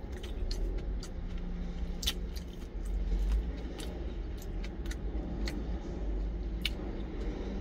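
Eating sounds: chewing, with a few sharp clicks of a wooden spoon scooping against a stainless steel lunch container. A low steady rumble runs underneath.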